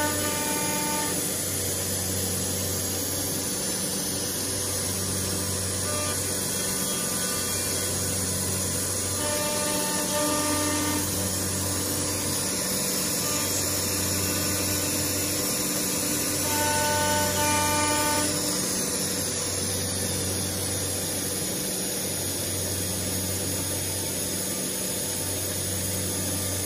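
A CNC router's 6 kW spindle cutting aluminum composite panel: a steady, high-pitched cutting noise that grows brighter in the middle. Background music with a steady, slow beat plays over it.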